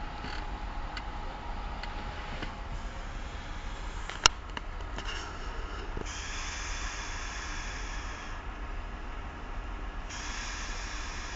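A man snoring in his sleep: two long, hissing breaths about four seconds apart, in the second half. A single sharp click about four seconds in, over a steady low hum.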